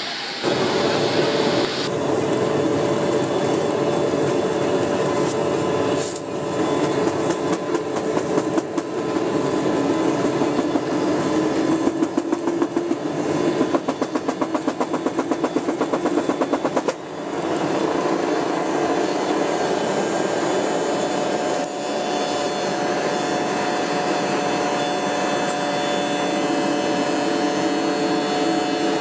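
Airliner takeoff heard inside the cabin: the Boeing 737-800's jet engines run at takeoff power with a slowly rising whine, over a rapid rhythmic rattle of the wheels on the runway. The rattle stops abruptly about 17 seconds in as the aircraft lifts off, leaving a steady engine drone through the climb.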